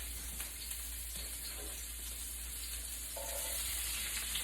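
Diced onion sizzling in hot bacon grease in a pan: a steady frying hiss with a few light clicks.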